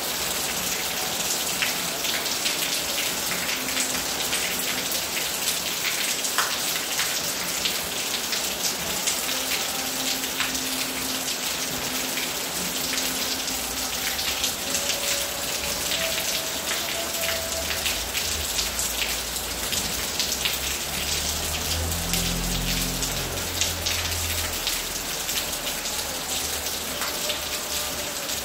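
Steady rain falling on hard surfaces, a dense, even patter of drops. A faint low rumble rises under it about two-thirds of the way through and fades again.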